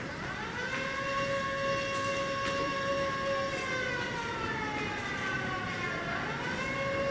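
Choir holding a high, sustained chord. From about halfway the upper notes slide down in pitch, and near the end they glide back up to where they started.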